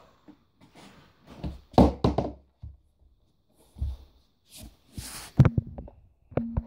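A few dull thumps of feet and a plastic penny board on a laminate floor as someone in socks balances on the board and steps off, the loudest about two seconds in. Near the end, close knocks and clicks as the phone is handled.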